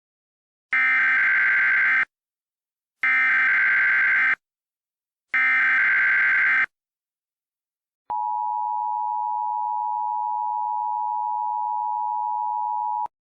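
Emergency Alert System signal: three identical bursts of digital SAME header data tones, each just over a second long and about a second apart. About eight seconds in comes the EAS two-tone attention signal, a steady dual tone that holds for about five seconds and cuts off sharply. Together they announce an incoming emergency alert bulletin.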